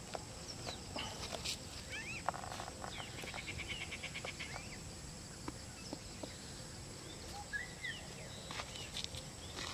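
Forest ambience: scattered short chirping bird calls, with a quick trill about three seconds in, over a steady thin high whine.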